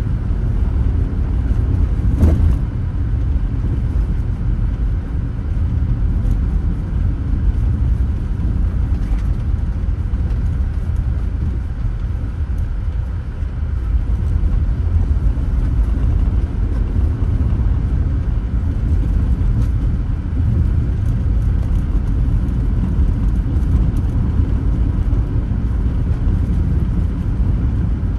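A car driving: steady low road and engine noise, with one short thump about two seconds in.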